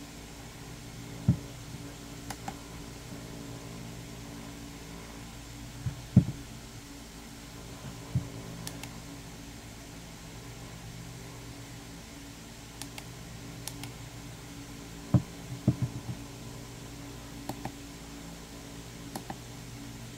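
A plastic camping lantern being handled on a table: a few dull knocks as it is turned over and set down, and light clicks as its power button is pressed to cycle the light modes. A steady low hum runs underneath.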